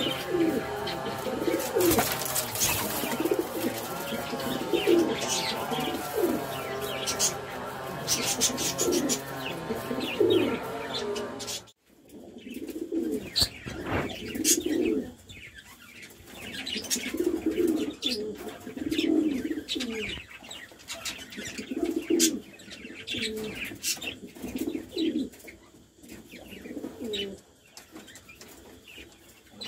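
Domestic pigeons cooing again and again, low throaty coos with sharp high chirps and clicks mixed in. About twelve seconds in the sound cuts off abruptly and the cooing carries on, more spaced out and quieter.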